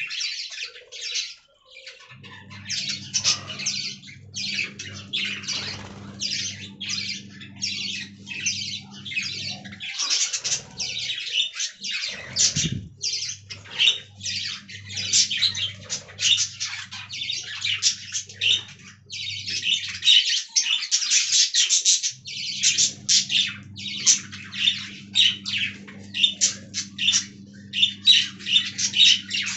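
Budgerigars chattering and warbling: a continuous stream of rapid high chirps and scratchy squawks.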